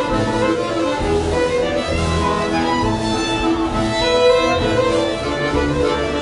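Fiddle and button accordion playing a waltz together, the fiddle carrying the melody over the accordion's sustained chords and a regular low bass pulse.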